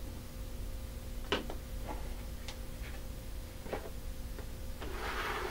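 Light plastic clicks and knocks, about five scattered taps, the sharpest about a second in, as small plastic toy figures and plastic bowls are handled and set down on a plastic tray, with a brief rustle near the end.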